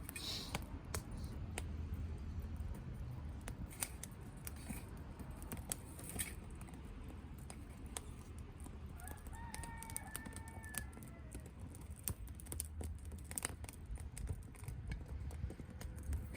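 Softwood (conifer) fire crackling in a small double-walled wood-burning stove, a Solo Stove-style copy: irregular sharp snaps and pops scattered over a low steady rumble.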